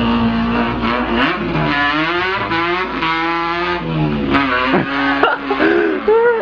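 A man imitating an import car's engine with his voice: a held note, then revving glides up and down in pitch, with a few short swoops near the end.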